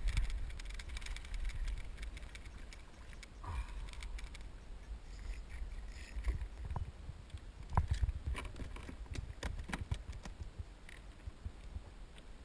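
Irregular knocks, clicks and light splashes as a bass is brought alongside a plastic kayak and lifted aboard, with the fish, rod and hands bumping the hull; the sharpest knocks fall in the middle of the stretch.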